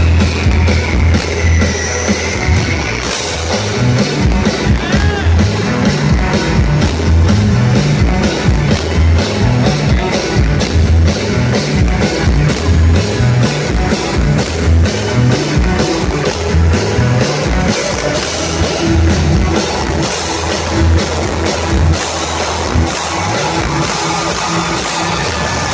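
Live band playing loud amplified music through a large arena's sound system, with a steady drum beat and a moving bass line.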